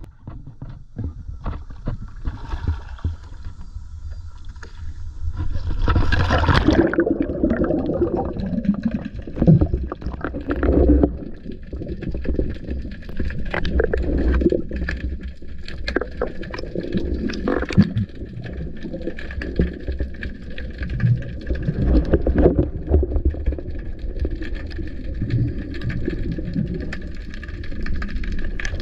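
Water splashing about six seconds in as a free diver goes under with the camera, then the muffled rumble and gurgle of water around the underwater camera, with scattered knocks.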